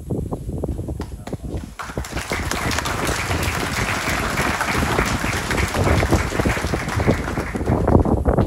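Audience applauding, the clapping swelling about two seconds in and dying away near the end.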